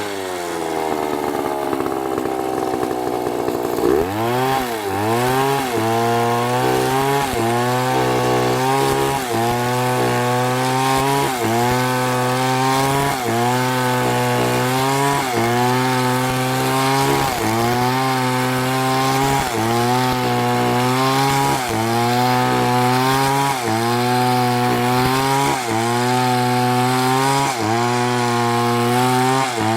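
Chainsaw engine running at high revs while cutting wood. Its pitch falls over the first few seconds and picks up again about four seconds in. From then on it dips and recovers about once a second as the chain loads in the cut.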